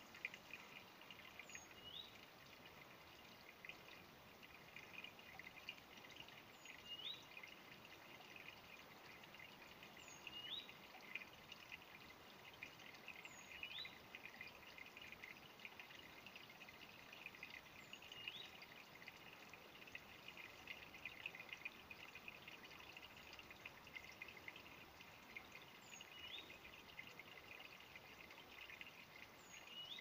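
Faint trickle of a shallow stream running over debris in its bed, with a bird repeating a short rising call every few seconds.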